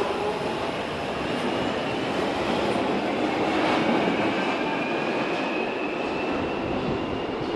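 London Underground Jubilee line 1996 Stock train pulling out of the platform and running into the tunnel: steady rumble of wheels on rails, with a traction whine that rises slowly in pitch as it speeds up.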